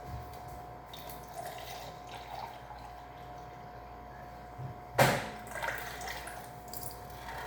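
Kitchen handling sounds while a snack is made: small scattered knocks and rustles over a steady faint hum, with one sharp, loud knock about five seconds in.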